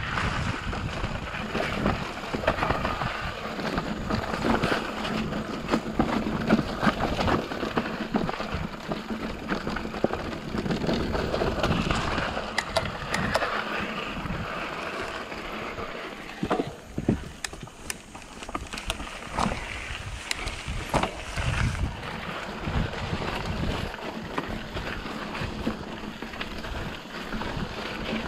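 Santa Cruz Nomad full-suspension mountain bike descending a dirt forest trail at speed. Wind rushes over the microphone, the tyres hiss over the dirt, and the bike clatters and knocks over roots and bumps throughout. The noise eases for a couple of seconds about two-thirds of the way through.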